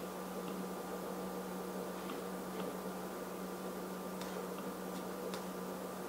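Steady room hum with a faint higher tone, and a few scattered, faint clicks of typing on a laptop keyboard.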